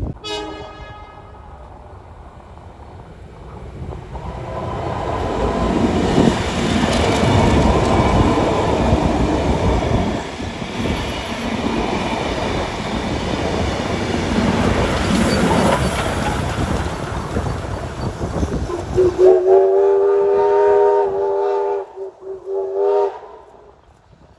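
A steam-hauled passenger train rumbles past close by, its wheels clattering over the rail joints. Near the end a locomotive whistle sounds one long blast and then two short ones.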